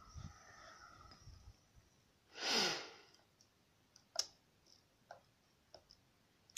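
A person sighs once, a long breathy exhale about two and a half seconds in. Around it, a few faint short clicks of a lock pick and tension wrench working the pins of a Mul-T-Lock cylinder.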